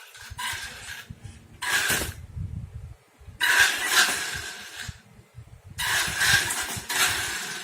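Small electric motor and gearbox of a WLtoys 18428 toy RC car whirring with a steady whine in repeated bursts as the throttle is opened and released: a short burst about two seconds in, then longer runs of about a second and a half each near the middle and toward the end.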